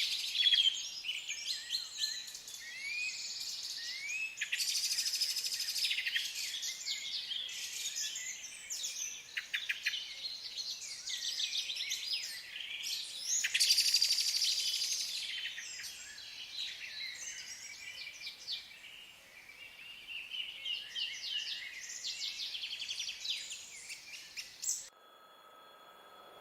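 Several songbirds singing at once, a dense overlapping chorus of trills, whistles and chirps. It cuts off suddenly near the end, leaving a faint steady hum.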